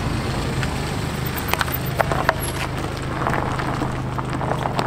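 Car engines running at low revs as modified cars drive slowly past, with a few short sharp clicks about a second and a half to two and a half seconds in.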